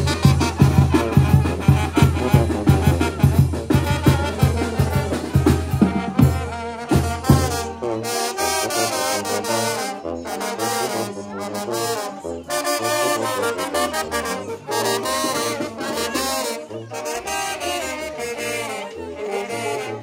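Oaxacan village brass band playing dance music: drums keep a steady beat for the first seven seconds or so, then drop out while the brass carries on.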